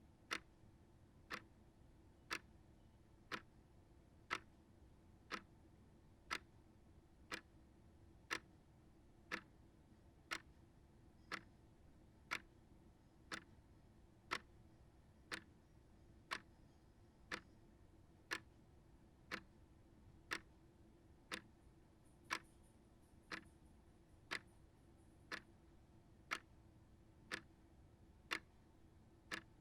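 Small shelf clock ticking steadily, about one tick a second.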